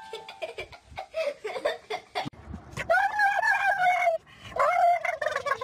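A cat pawing at a toy electronic keyboard, giving scattered clicks and short notes. Then a dog howls in two long, wavering notes, each about a second long.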